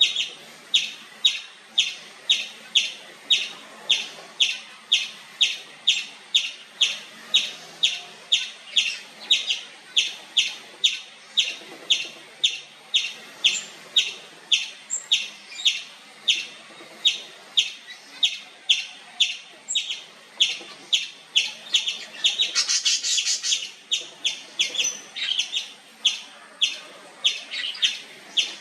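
Indian palm squirrel (three-striped palm squirrel) chirping nonstop: sharp, high chirps repeated steadily at about two a second. About two-thirds of the way through there is a brief, louder, rougher burst.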